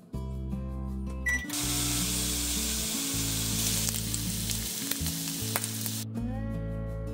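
Bacon sizzling as it fries in a pan: a steady hiss that starts about a second and a half in and stops abruptly some four and a half seconds later, under background music.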